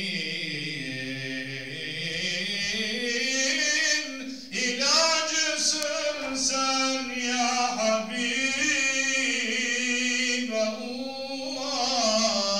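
A solo unaccompanied male voice chants a Turkish mevlüt recitation in long, ornamented melismatic phrases, the pitch gliding up and down through held notes. A short break for breath about four seconds in starts a new, higher phrase.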